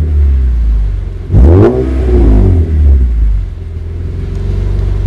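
BMW M3 exhaust fitted with a Gruppe M aftermarket silencer, heard at the tailpipes while the engine runs at standstill. A quick rev about a second and a half in rises sharply and falls back, and the engine settles to a steady deep burble.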